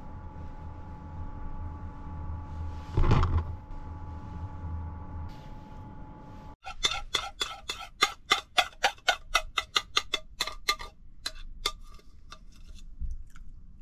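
A spoon scraping and clinking against a ceramic bowl, a quick run of sharp clicks, about three or four a second, that thins out near the end as the last of the porridge is scraped out. Before it, a steady hum with a brief louder noise about three seconds in.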